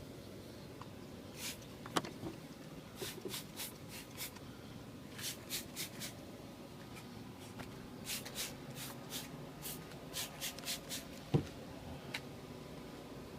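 Trigger spray bottle squirting soap cleaner onto a window air conditioner's coils: many quick hissing squirts in runs, with one knock near the end.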